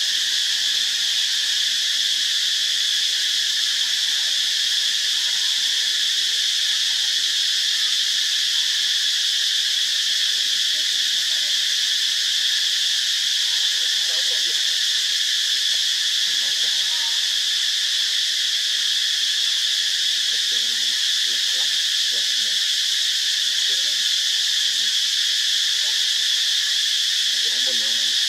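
Steady, unbroken high-pitched chorus of insects buzzing, with no pauses or changes in level.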